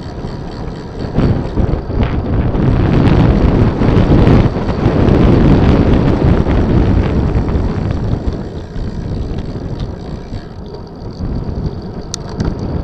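Wind buffeting a camera microphone at riding speed, a rough rushing noise that swells in the first few seconds and eases off in the second half. A sharp click near the end.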